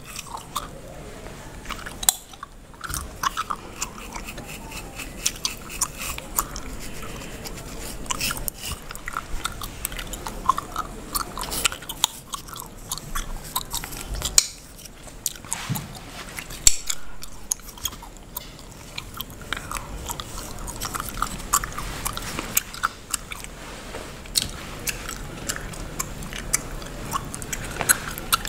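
Bubblegum being chewed and cracked close to the microphone: wet chewing broken by frequent sharp snapping pops at an irregular pace.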